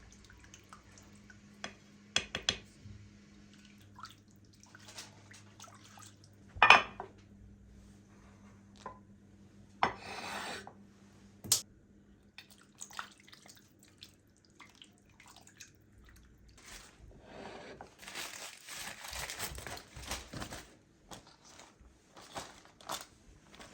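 Kitchen work sounds: dishes and cutlery clinking and knocking in scattered, separate strikes, the loudest about seven seconds in, with a couple of short rushing, hissing stretches later on. A faint low hum runs underneath and stops about sixteen seconds in.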